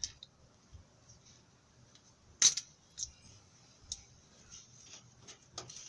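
Scattered light clicks and taps from handling tools and parts. The sharpest click comes about two and a half seconds in, with a few fainter ones after it.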